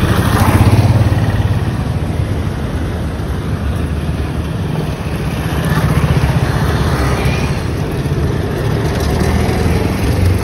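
Motorcycle and scooter engines running on a street, as a scooter pulls away and motorbike traffic passes. It swells about a second in and again around six seconds.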